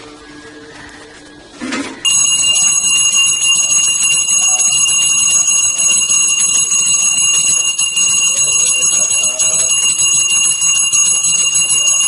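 A temple bell starts ringing abruptly about two seconds in and keeps up a loud, steady, bright ringing, rung continuously for the aarti lamp offering. A short knock comes just before the ringing starts.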